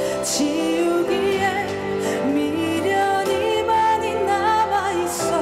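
Slow, tender ballad with a female voice singing long, wavering notes over a steady instrumental accompaniment.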